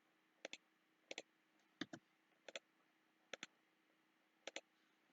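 Computer mouse clicking: about six quiet, sharp clicks, each a quick pair, spaced well under a second apart while drawing in CAD software.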